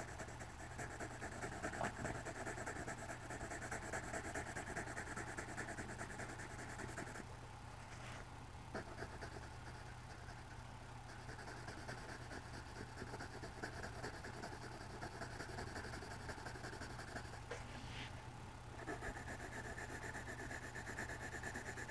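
Blue coloured pencil shading on drawing-pad paper: a faint, steady scratchy rubbing of continuous colouring strokes, quieter for a stretch in the middle.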